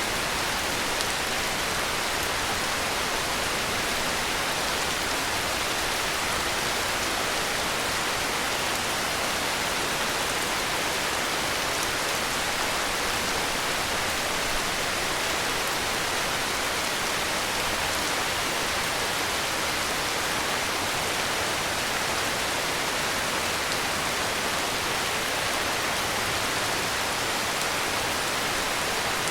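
Heavy rain falling steadily, an even hiss of dense raindrops on surfaces with no thunder or other events.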